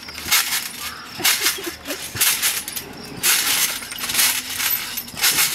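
Trampoline springs and mat jingling and rattling with each bounce as a child jumps and flips, a burst roughly every second.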